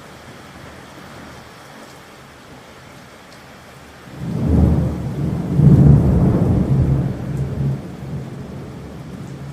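Thunderstorm: steady rain hiss, then a long rolling thunderclap that swells in about four seconds in, peaks a couple of seconds later and slowly rumbles away.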